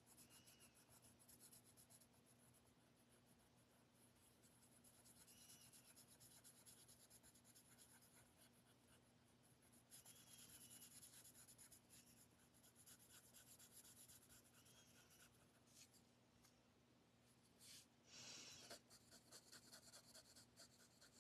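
Faint scratching of a coloured pencil shading on cardstock in quick back-and-forth strokes, a little louder for a moment near the end.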